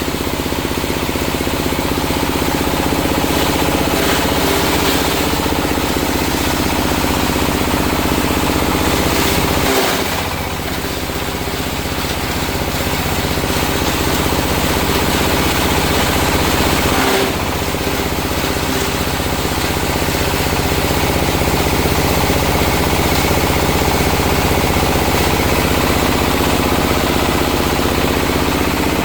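Coconut-husk grinding machine (Type 60 cocopeat shredder) running steadily, its motor and crushing blades making a loud, even mechanical din with a rattling edge. The sound dips briefly twice, about ten and seventeen seconds in.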